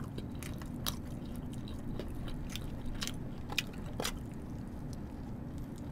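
Close-miked mouth sounds of someone eating a cheese-filled toast sandwich: soft chewing with a few short crunchy clicks of bites, over a steady low hum.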